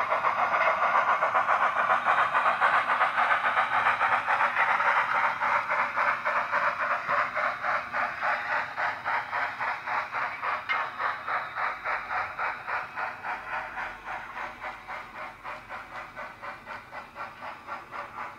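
Steam-locomotive sound from a Wheeltappers LMS Beyer-Garratt sound file on an ESU LokSound 5 decoder, played through the model's small speaker: steady, rapid chuffing with hiss. It fades gradually as the model runs away.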